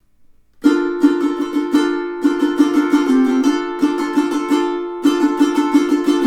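aNueNue UT-200 Moon Bird tenor ukulele played in chords: it starts just over half a second in with a quick run of sharp strokes, with brief breaks between phrases.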